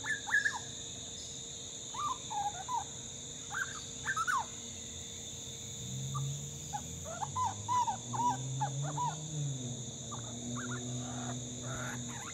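Grey butcherbird fledgling singing in scattered phrases of short whistled notes that glide up and down, with the densest run in the middle. It is a young bird still practising its song.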